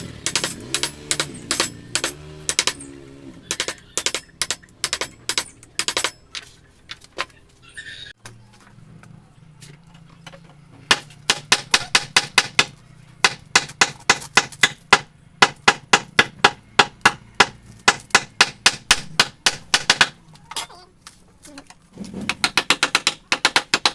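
Mallet tapping a carving chisel into wood in rapid repeated strikes, about three a second, with a lull of a few seconds partway through.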